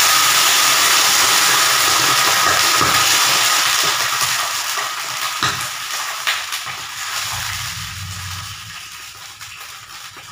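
Hot oil tempering in a frying pan sizzling loudly as liquid hits it, the sizzle slowly dying down over several seconds. A couple of light knocks come midway.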